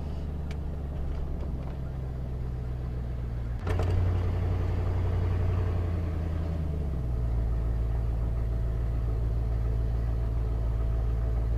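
Carbureted 351 Windsor V8 of a Ford F250 running steadily under way. There is a clunk about three and a half seconds in, after which it gets louder, and the engine note changes again about seven seconds in. These fit the hard shifts of its E4OD automatic transmission, which the driver puts down to low transmission fluid.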